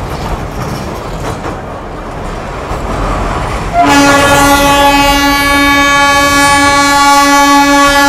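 Narrow-gauge Darjeeling Himalayan Railway train running over a steel truss bridge, with a steady rumble and wind. About four seconds in, the train's horn sounds one long, steady blast.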